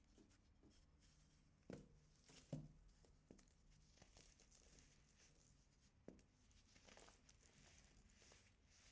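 Compressed baking soda being crunched and crumbled: a few faint sharp snaps, the loudest in the first third, with fine crackling between.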